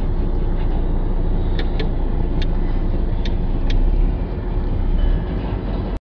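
Steady road and engine noise heard from inside a moving car, picked up by a dashcam, with about five light, sharp clicks in the middle. The sound cuts off abruptly at the end.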